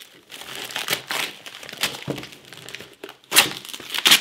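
Tissue paper and a cardboard box rustling and crinkling as a package is unpacked by hand, with the loudest crinkles near the end.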